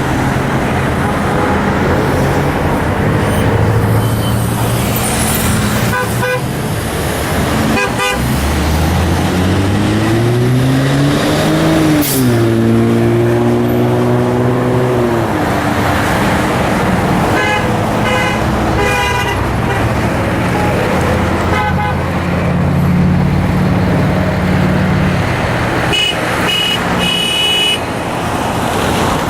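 Steady freeway traffic passing below, with car horns honking in short repeated beeps several times. Around the middle a deep engine drone rises in pitch for a few seconds, holds, then drops away.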